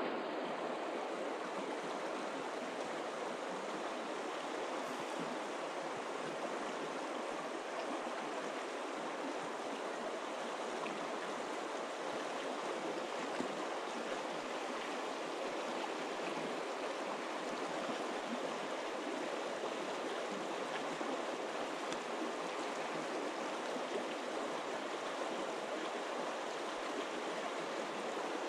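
Shallow river water running steadily over a cobble bed, heard close, as a constant even rushing.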